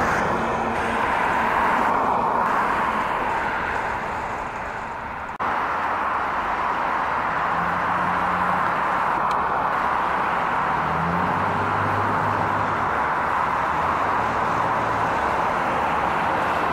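Steady road and engine noise heard inside a moving vehicle, with a dip and a sudden jump about five seconds in.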